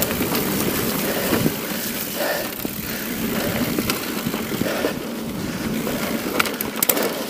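BH Ultimate mountain bike rolling over a dirt and stony singletrack: steady tyre noise from the ground, with the bike rattling and giving a few sharp clicks over bumps, more of them near the end.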